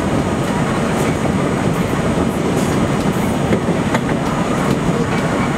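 New York City Subway A train running along the track, heard from inside the front car: a steady rumble of wheels on rail with occasional sharp clicks.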